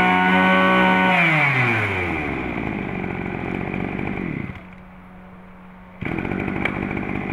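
Mitsubishi TU26 26 cc two-stroke brush cutter engine revving at full throttle, then let off about a second in so its pitch winds down over a few seconds. It is quiet for a moment near the middle, then loud and steady again from about six seconds in.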